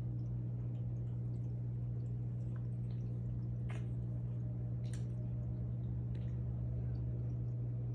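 Steady low hum of running aquarium equipment, with a few faint scattered clicks and drips over it.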